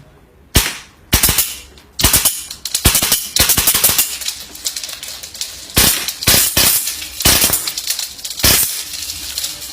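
HPA-powered Scorpion EVO A3 airsoft gun on a Ninja LPR V2 regulator firing sharp single shots and quick short bursts as a magazine is emptied.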